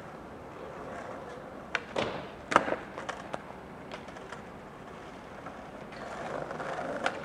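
Freight train hauled by an EF81 electric locomotive approaching from a distance: a low, steady rumble that grows louder near the end, broken by several sharp clicks and clanks, the loudest about two and a half seconds in.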